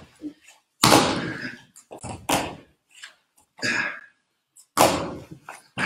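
A series of short bursts of noise with silent gaps between them, the loudest about a second in and near the end: hard breathing and body movement of people exercising on a floor mat.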